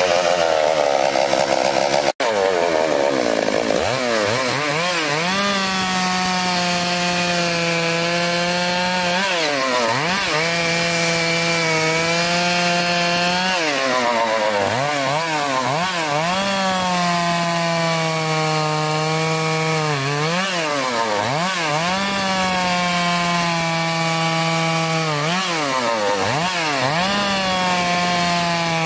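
Stihl two-stroke chainsaw running at high revs while sawing through a log, its engine pitch dipping and recovering every few seconds as it loads up in the cut. The sound cuts out for an instant about two seconds in.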